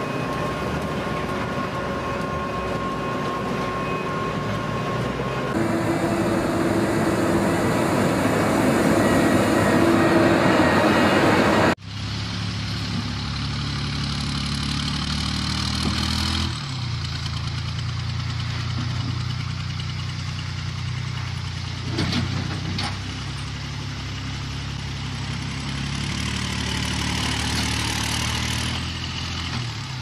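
Python pothole-patching truck running with a steady whine, louder from about five seconds in. After an abrupt cut about twelve seconds in, a dump truck's diesel engine runs steadily while its raised bed tips a load of broken asphalt, with a short knock about ten seconds later.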